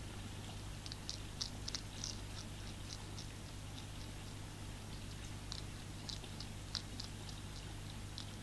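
Hedgehog eating from a tray of dry food: quick, irregular high crunching clicks of chewing, several a second in two runs. A steady low hum lies underneath.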